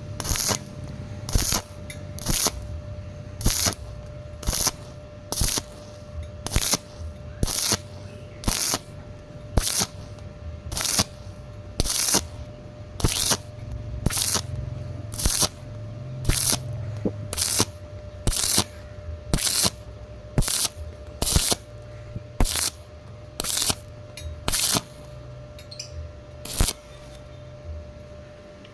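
Stick welding on thin galvanized square pipe in short arc bursts, each a brief crackling hiss, about one a second. This is the stitch-and-pause rhythm used so thin-walled pipe doesn't burn through.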